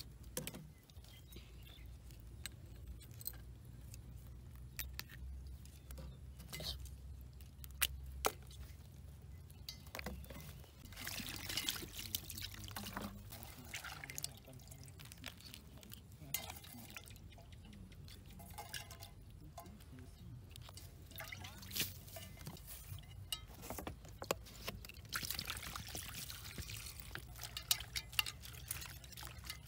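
Water splashing, dripping and trickling in an enamel bowl as small fish and crabs, and later leafy greens, are washed by hand, with scattered light clicks.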